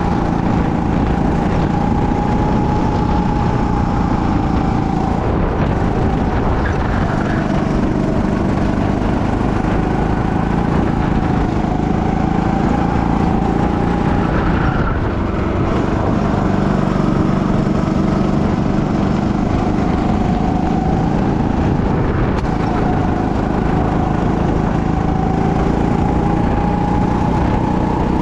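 Go-kart engine running under load while lapping, its pitch rising and falling slowly every few seconds as the kart accelerates and slows through corners, over a steady rushing noise.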